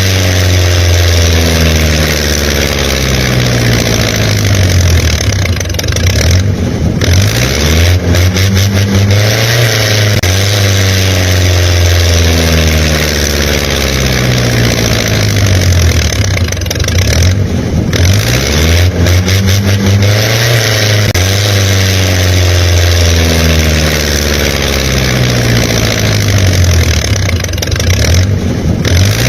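An engine revving up and down over and over, its pitch rising and falling in long glides. The same pattern comes round again about every eleven seconds, like a looped engine sound track.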